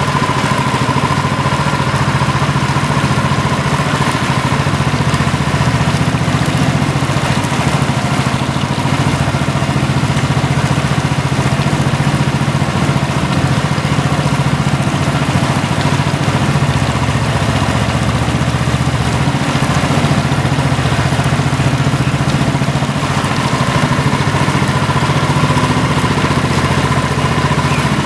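A motor running steadily, an even hum with a steady higher tone that fades out partway through and comes back near the end.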